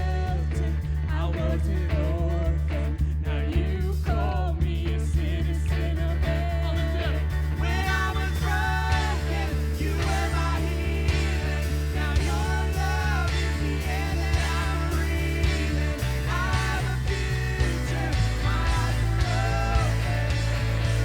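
Worship song played by a band with a singer: a sung melody over held bass notes, the chord changing about two-thirds of the way through and again shortly after.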